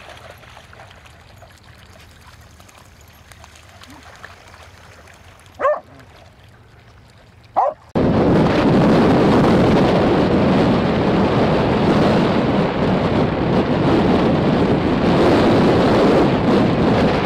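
A Dandie Dinmont terrier barks twice, short and sharp, about two seconds apart. About eight seconds in, loud steady wind buffeting the microphone takes over and is the loudest sound.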